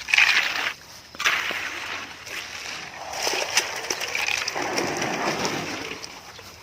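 Wet concrete being worked by hand, with scraping and sloshing in several bursts and a longer, heavier stretch near the end.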